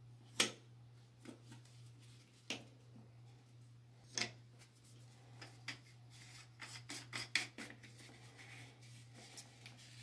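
Plastic parts of a toilet fill valve being handled and fitted together: a few separate sharp clicks, then a quicker run of small clicks and rubbing in the second half as the diaphragm cap is worked onto the valve body.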